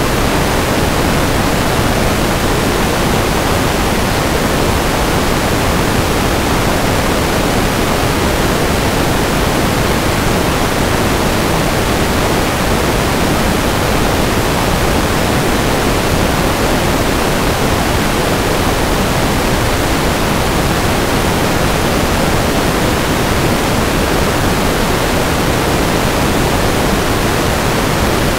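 Loud, steady hiss of static from an analog FPV video receiver that has lost its signal, cutting in suddenly at the start: the drone's video link has dropped out.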